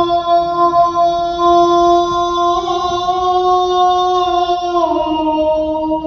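Shigin poetry chanting: a single voice holds one long note at a steady pitch, dipping slightly lower about five seconds in.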